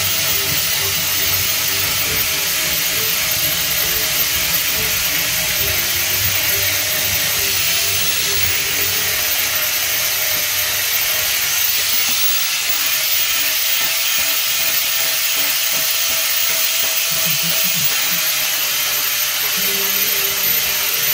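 Steady, even hiss of outdoor background noise, with a faint wavering hum underneath.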